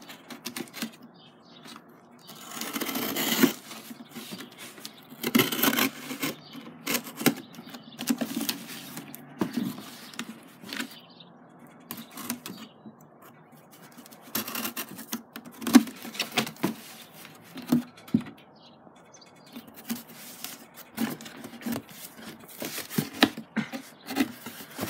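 Cardboard mailing box being handled and opened by hand: scraping, rustling and tearing of cardboard and packing tape, with scattered taps and knocks. A longer tearing noise comes about three seconds in, and a sharp knock midway.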